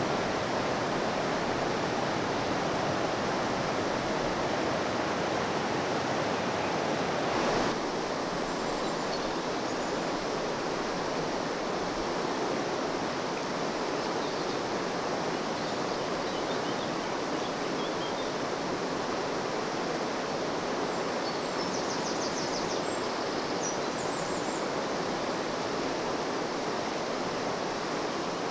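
River water running fast over stones in shallow rapids, a steady rushing sound.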